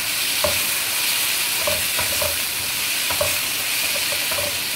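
Chicken and sliced vegetables sizzling in oil in a non-stick wok, stirred with a spatula that scrapes and knocks against the pan about once a second over the steady hiss of frying.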